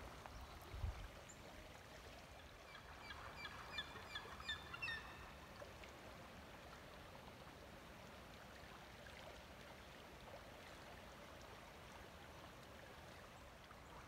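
Faint, steady rush of a fast-flowing river. A soft thump comes near the start, and from about two and a half to five seconds in a bird gives a quick run of short, repeated calls.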